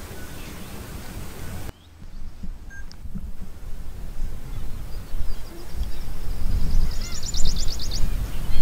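Outdoor ambience: a low, uneven rumble with birds calling over it. A thin high whistle comes in about five seconds in, then a rapid high trill with a few short chirps under it around seven seconds in; the rumble drops out briefly about two seconds in.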